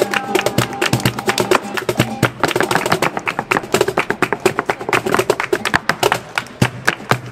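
Live flamenco percussion: dense, rapid strikes from a dancer's heeled footwork on a dance board, together with palmas hand-clapping and a cajón, over a nylon-string flamenco guitar.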